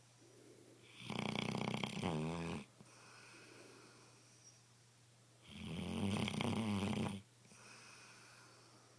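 A sleeping shar pei snoring loudly: two long rattling snores about four seconds apart, each lasting about a second and a half, with quiet breathing between them.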